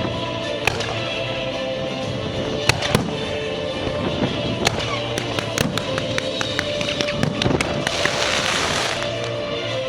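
Fireworks going off: a few sharp bangs, then a quickening run of pops that swells into a dense crackling hiss about eight seconds in and stops about a second later. Background music plays steadily underneath.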